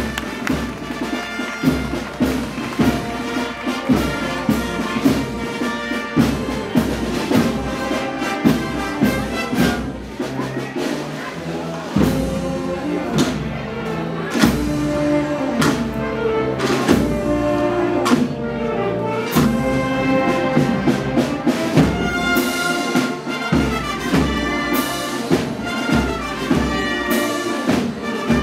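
Brass band music: brass tones held over a regular drum beat.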